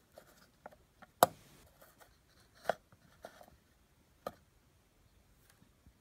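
Thin metal pickup cover being handled and set down: a few sharp clicks and taps, the loudest about a second in.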